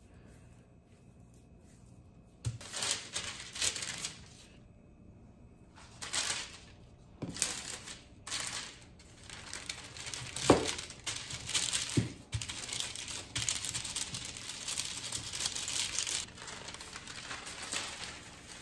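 Parchment paper crinkling and rustling in repeated bursts as it is handled and pressed over a ball of dough, starting a couple of seconds in. Around the middle, a glass bowl pressed down onto the paper knocks against the counter twice.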